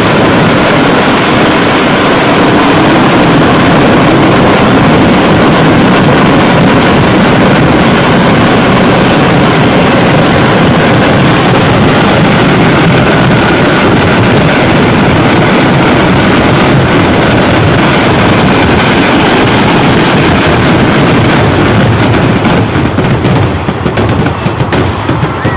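Kerala vedikkettu fireworks barrage: a continuous, very loud roar of rapid explosions merging into one another, easing slightly near the end.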